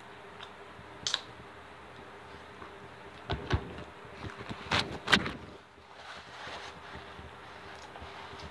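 Close-up eating sounds: a few short crunches and clicks of biting and chewing food, loudest about five seconds in, over a faint steady room hum.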